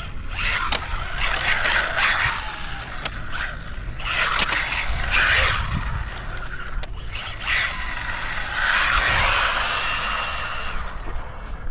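Small RC truck with a brushless motor running hard: three long surges of tyre scrub and motor noise over the pavement, spread across the stretch.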